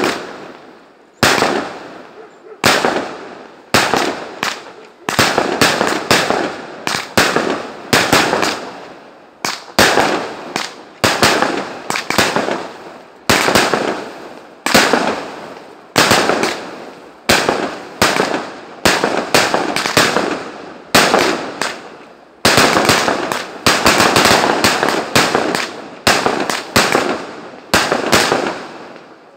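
A fireworks display: aerial shells bursting one after another, about one a second, each bang dying away before the next. About three-quarters of the way through, a quicker volley of bursts runs together.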